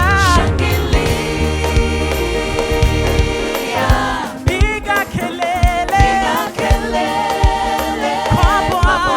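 Live gospel praise music: singers and a choir with a band, with sustained keyboard chords and steady drum beats. The bass drops away about three and a half seconds in and the drums carry on.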